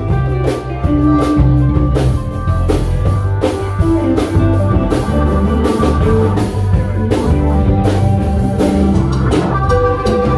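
A band playing an instrumental passage, with a drum kit keeping a steady beat under guitar.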